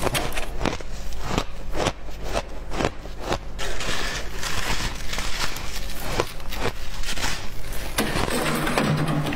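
Irregular crunching of packed shaved ice being bitten and chewed close to the mouth, with crisp crackles as gloved hands squeeze and scoop more ice. A short low hum comes in near the end.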